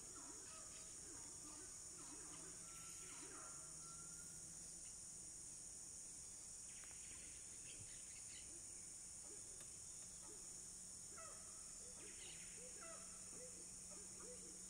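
A steady, high-pitched drone of cicadas and other insects, with scattered bird calls around it. A faint low hum runs underneath.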